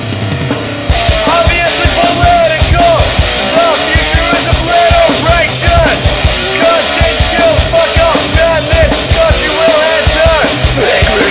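Deathcore/metalcore demo recording: a heavy band with distorted guitars and fast drums comes in at full strength about a second in, with a high repeating melodic line over it.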